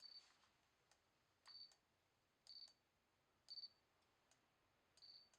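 Handheld infrared laser thermometer taking readings: faint short high beeps with clicks, repeated about once a second.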